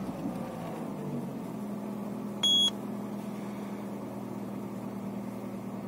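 Peugeot 307 1.4 engine running at a steady idle after starting with its ECU's immobiliser disabled. A single short beep sounds about two and a half seconds in.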